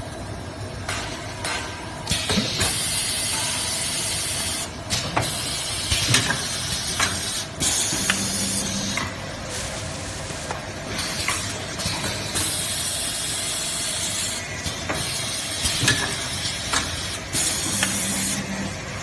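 Toilet paper packing machinery running, with hissing spells of one to two seconds that come and go, clicks and knocks, and a short low hum twice.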